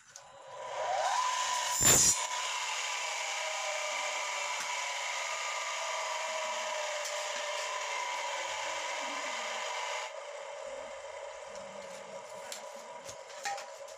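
Electric miter saw: the motor spins up with a rising whine, then the blade bites briefly and loudly through a metal bar about two seconds in. The motor keeps up a steady whine afterwards and drops off about ten seconds in.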